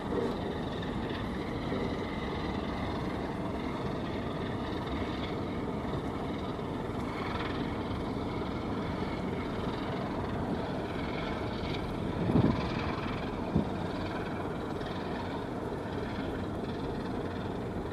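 Steady low rumble of distant ship and tugboat engines carried across the water, with two brief thumps about twelve and thirteen and a half seconds in.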